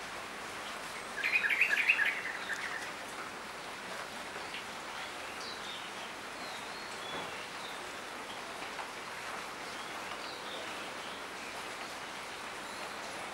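Steady rain falling on leafy trees, heard as an even hiss. About a second in a bird calls loudly in a quick run of notes for about a second, and a few faint high chirps follow later.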